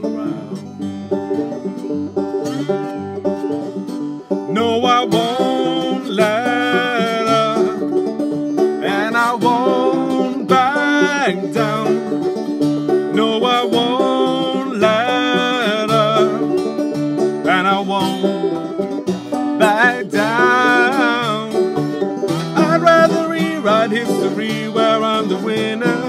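Banjo and acoustic guitar playing a song together, with singing voices coming in about four seconds in.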